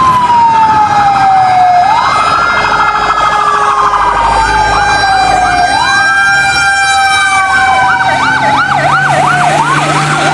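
Toy fire engine's electronic siren playing a wail that rises quickly and falls slowly, three times over; about three-quarters of the way through, a faster warble of about three sweeps a second joins it.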